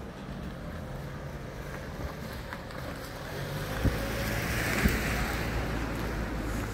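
A vehicle passing: a steady low rumble with a hiss that swells about four seconds in and fades again, with a couple of light knocks near the loudest point.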